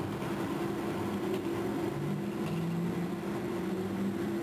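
35-cubic-yard mining shovel digging into blasted rock: a steady machinery hum made of several held tones, which shift slightly in pitch about two seconds in as the dipper crowds into the bank.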